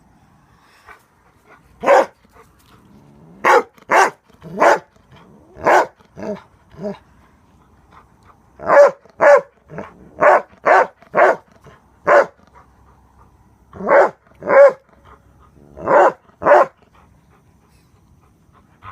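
A dog barking, about twenty short barks, many of them in quick pairs, with pauses of a second or two between groups.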